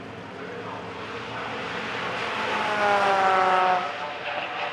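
A Mazda Roadster (MX-5) race car's four-cylinder engine passing by at speed: the engine note builds to a peak about three seconds in, its pitch dropping as the car goes past, then falls away quickly.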